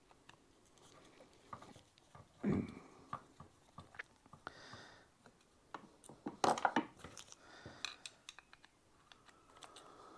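Light clicks and knocks of hand tools and small metal carburetor parts being handled as the float bowl comes off a carburetor. There is a sharper knock about two and a half seconds in and a quick run of clicks around six and a half seconds.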